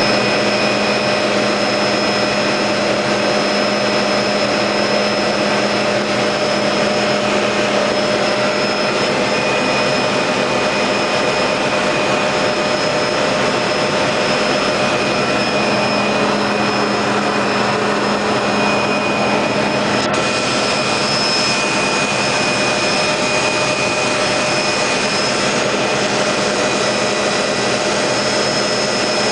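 A helicopter's engine and rotor running steadily in flight, heard from inside the cabin as constant loud noise with a steady whine over it. There is one short click about two-thirds of the way through.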